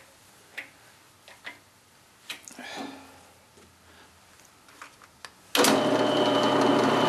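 A few light clicks of handling at the drill press, then about five and a half seconds in the drill press motor switches on and runs with a steady hum of several even tones.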